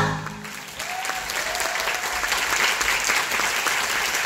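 A musical number's final sung note cuts off, and a theatre audience breaks into applause that builds within the first second into steady, dense clapping.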